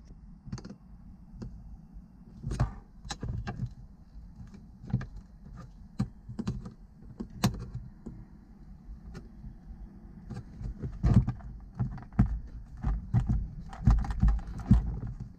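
Irregular clicks, taps and light rattles of a hand tool and plastic trim at a car's rearview mirror mount as it is being taken off, with heavier knocks in the last few seconds.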